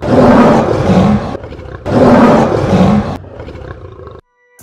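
A lion roaring twice, each roar loud and lasting about a second and a half, followed by a quieter tail that cuts off abruptly.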